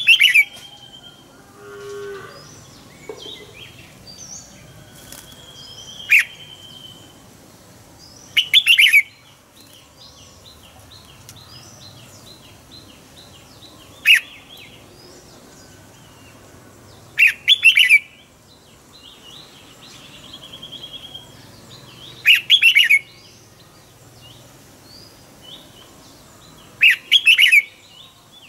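Red-whiskered bulbul singing short, loud phrases every four or five seconds, with fainter bird chirps in between.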